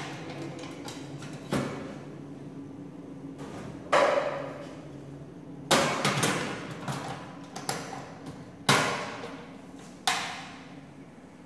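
A series of hard clunks and knocks with short ringing tails, about five of them a second or more apart, as metal kitchen items are handled and set down at the wok and stove.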